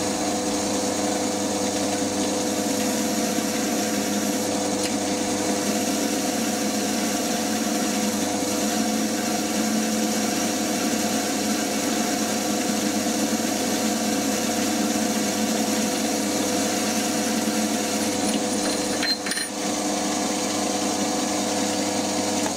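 FDB Maschinen Turner 250x550 benchtop metal lathe running steadily under power, with an even whine from its motor and gearing. Its cutter is turning away the crimped end of a steel chuck key's sleeve. A few faint clicks come near the end.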